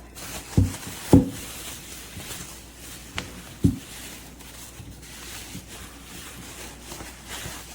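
Handling noise from unpacking a wooden knife block: a few short, dull knocks and light rubbing and rustling of the block and its packaging.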